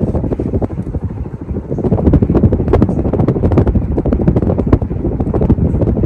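A 50-inch Casablanca Delta II ceiling fan running with five blades. Its airflow buffets the microphone as a loud, gusty rush of wind noise full of rapid thumps, easing briefly about a second in.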